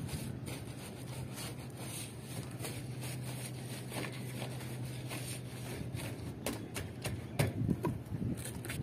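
A paint brush scrubbing and dabbing thick bitumen emulsion onto a corrugated tin roof sheet: faint scraping, tapping strokes over a steady low hum, with a few louder strokes near the end.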